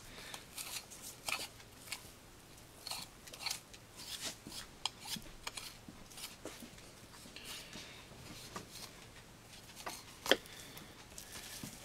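Boning knife cutting deer shoulder meat away from the bone on a cutting board: faint, irregular small clicks and scrapes as the blade meets bone and board, with one sharper click near the end.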